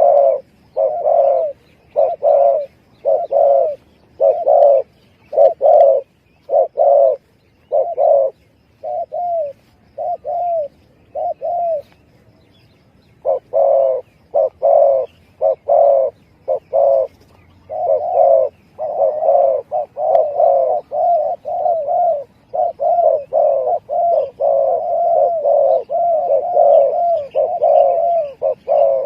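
Spotted dove (tekukur) cooing in runs of short, repeated coos. There is a pause of about a second and a half near the middle, then a faster, almost unbroken series in the last third. This is a lure call for drawing in spotted doves.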